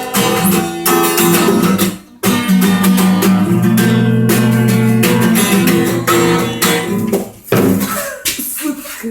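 A guitar being strummed hard in fast chord strokes, breaking off for a moment about two seconds in, then ringing out on held chords before thinning out near the end.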